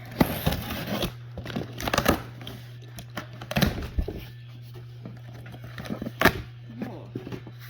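Packaging being torn open and rustled by hand: irregular bursts of tearing and crinkling as the box is opened and its contents handled, over a steady low hum.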